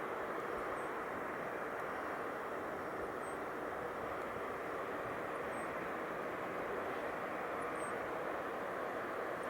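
Steady background rumble of distant engine noise, even throughout. Faint, short, high bird calls sound about every two to three seconds over it.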